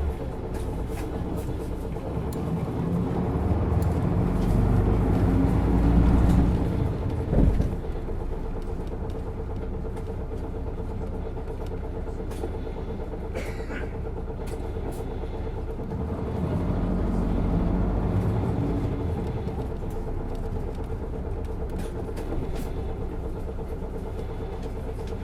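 Isuzu Erga city bus's diesel engine, driving a six-speed manual gearbox, heard from on board. It pulls louder for several seconds and a short sharp sound comes at about seven seconds, then it runs steadily before pulling up again for a few seconds later on. A steady thin whine runs underneath.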